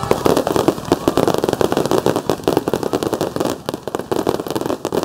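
Fireworks crackling: a dense, rapid, irregular stream of sharp pops, many a second, with no pause.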